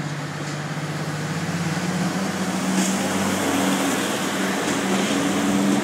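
Class 55 Deltic diesel-electric locomotive's twin Napier Deltic two-stroke diesel engines running as it approaches, growing steadily louder. The engine note rises about two seconds in.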